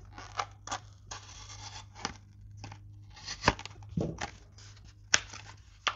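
Plastic blister packaging on a cardboard backing being cut and torn open: irregular crackling and tearing with a few sharp snaps of the plastic.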